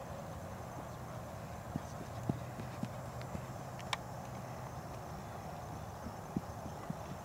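Steady outdoor background hiss with a few scattered soft knocks and one sharp click about four seconds in.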